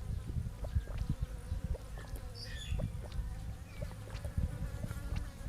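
A fly buzzing steadily, over scattered short clicks and taps.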